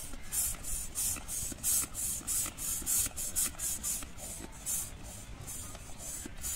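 Hand air pump inflating a balloon: a short hiss of air with each stroke, about three strokes a second.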